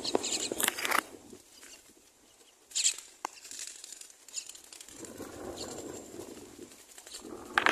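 Common myna nestlings stirring in the nest: flapping and rustling, with short, sharp high calls in the first second and again about three seconds in, then a softer rustle.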